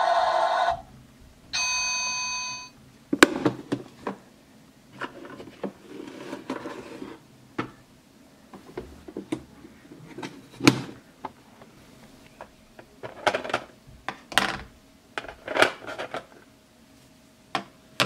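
Toy kitchen oven's electronic sound stops a moment in, then a steady electronic ding-like tone sounds for about a second and a half. After it come scattered clicks and knocks of hard plastic as the oven door is handled.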